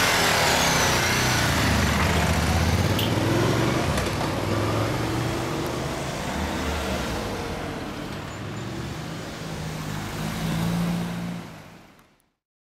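Ducati 999's L-twin engine revving as the bike pulls away, then fading over several seconds into the steady sound of a car and street traffic. The sound cuts off suddenly about twelve seconds in.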